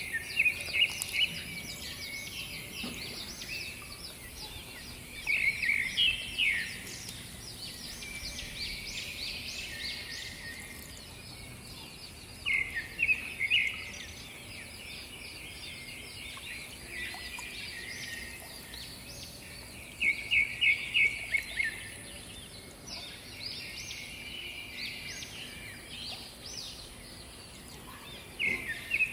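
Birds singing and chirping. One bird repeats a louder phrase of several quick notes about every seven seconds over steady background chirping.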